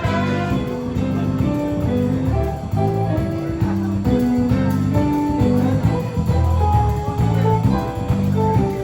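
Background music with a steady rhythm of sustained instrumental notes, cutting off abruptly near the end.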